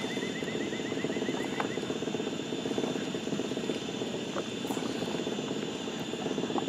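Steady low rumbling noise, with a thin steady insect drone high above it. In the first second and a half there is a rapid chirping trill.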